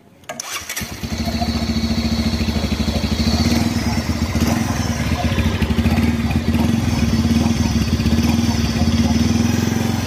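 Bajaj Pulsar 150 (2022, BS6) single-cylinder engine starting a fraction of a second in, then idling steadily through its stock exhaust with an even, quick pulse.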